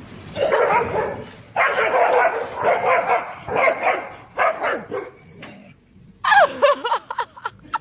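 A dog vocalizing in a series of pitched calls that bend up and down, each about half a second to a second long. The calls stop for a moment about five and a half seconds in, then come back quicker and shorter near the end.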